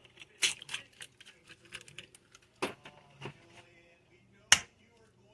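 Eggs being tapped and cracked on the edge of a bowl: three sharp knocks about two seconds apart, with smaller clicks of shell and dish between them.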